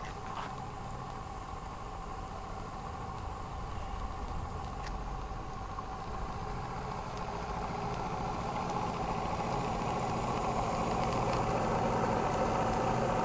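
Model Martin Balis twin-cylinder steam engine running steadily on steam, the boiler at nearly 30 psi; it grows gradually louder toward the end.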